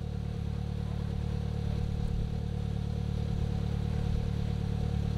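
Polaris Slingshot's engine idling steadily, a low even hum.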